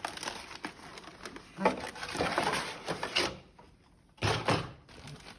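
Packaging being handled: rustling and crinkling with small clicks, in two louder bursts, the second about four seconds in.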